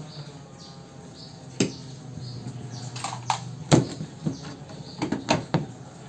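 Sharp, irregular clicks and taps of steel pliers gripping and turning a rusted, headless bolt as it unscrews from the washing machine body, about half a dozen in all, over a low steady hum.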